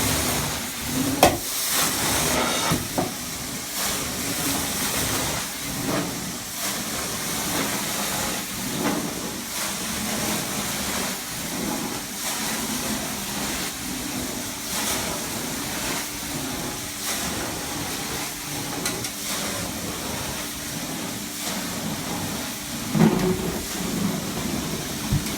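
Steady hiss of a carpet steam-cleaning extraction wand working over the carpet, with scattered short knocks, the sharpest about a second in and another cluster near the end.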